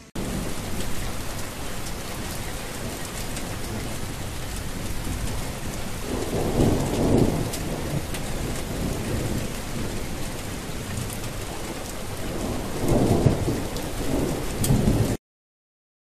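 Steady heavy rain with two low rumbles of thunder swelling up, one midway and one near the end; the sound starts abruptly and cuts off suddenly near the end.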